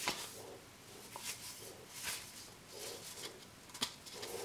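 Faint handling noises: light rustling and a few soft taps and clicks as hands handle a freshly cut roll of seamless paper at a stopped miter saw. The sharpest click comes a little before the end.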